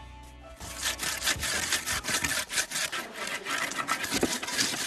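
Raw sweet potatoes being rubbed hard against the ridged inside of a Hakka grinding bowl (擂钵), grating them to a pulp: a rapid rasping scrape, about three or four strokes a second.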